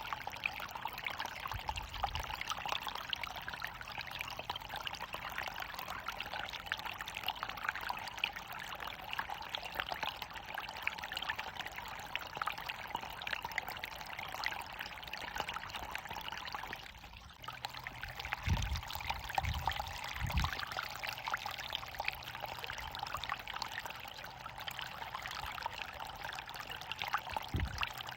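Water running steadily over a waterfall, an even rushing splash with no change in flow. There is a brief dip just past the middle of the stretch and a few low thuds after it.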